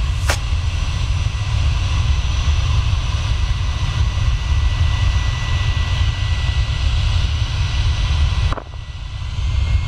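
Jet airliner engines running, a steady rumble and hiss with a thin high whine, dropping away suddenly near the end.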